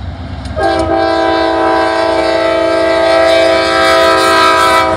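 Diesel freight locomotive's air horn sounding for a grade crossing: one long held blast that starts about half a second in and sounds as a chord of several notes, over the low rumble of the approaching train.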